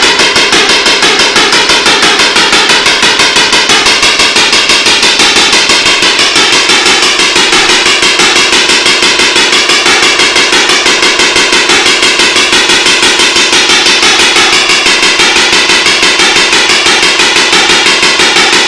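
VersaTron shockwave therapy handpiece firing against a dog's hip: a rapid, even train of loud sharp snaps from the electrohydraulic spark discharges delivering the treatment pulses, unbroken throughout.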